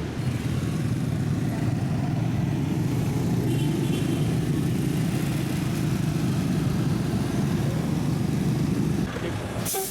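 Motorbike running on the move, a steady low rumble that eases off about nine seconds in.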